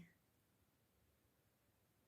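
Near silence: faint room tone in a pause between words.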